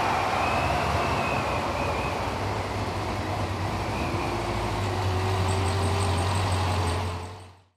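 Supercharged C7 Corvette Z51's 6.2-litre V8 coming down off a run: the whine falls away in the first second, then a steady low drone, fading out near the end.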